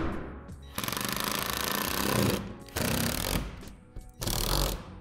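Cordless drill driving screws into plastic shed wall panels in three runs: a long one of about a second and a half, then two short ones. A sharp knock comes right at the start.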